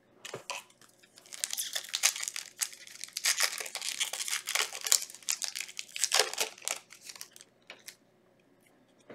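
Foil wrapper of a Yu-Gi-Oh booster pack being torn open and crinkled, a dense crackle for several seconds after a few light clicks, dying down near the end.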